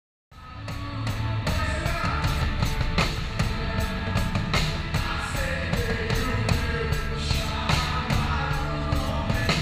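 Live worship band playing a rock-style song: a drum kit with regular drum and cymbal hits over bass and guitars, with singing. It starts suddenly about a third of a second in.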